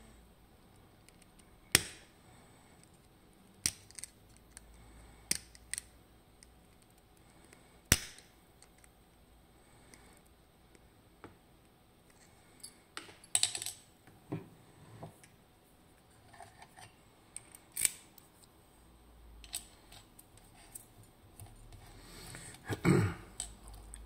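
Sharp metallic clicks a few seconds apart from circlip pliers gripping and working the retaining C-clip off the brass core end of a Ruko 500 lock cylinder, with faint scraping between them. Near the end comes a louder cluster of clicks and a knock as the clip comes free.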